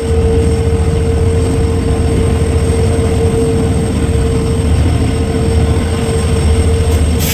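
EMD WDP4 diesel locomotive's 16-cylinder two-stroke engine humming steadily as the train runs, a constant mid-pitched whine over a low rumble, heard from the first coach behind it. A brief sharp noise near the end.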